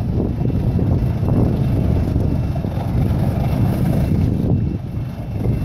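Low, steady rumble of a motor yacht's engines as it manoeuvres slowly in to dock, mixed with wind buffeting the microphone.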